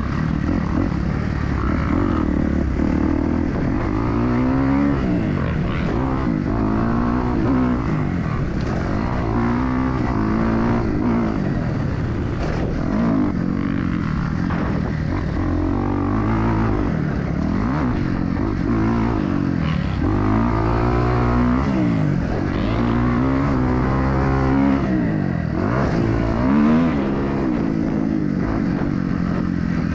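Dirt bike engine racing on a motocross track, its pitch climbing as the throttle opens and dropping back when it shuts off, over and over, with a steady low rumble beneath.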